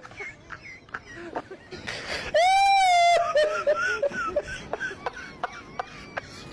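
A person's voice: a loud, high, drawn-out cry or squeal about two seconds in, among softer short vocal sounds and small clicks.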